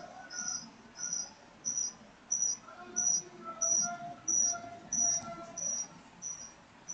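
A cricket chirping steadily, about one and a half chirps a second, growing fainter toward the end.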